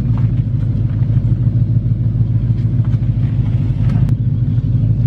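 Holden VN SS Commodore's 5-litre V8 idling and creeping along at walking pace, a steady low rumble heard from inside the cabin.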